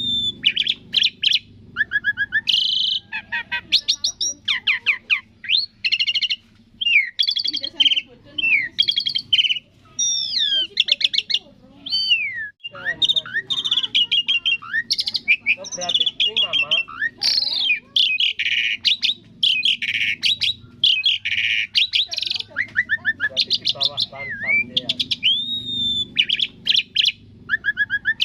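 Asian pied starling (jalak suren) singing: a continuous, varied run of clear whistles, rising and falling glides and rapid chattering notes, over a faint low hum.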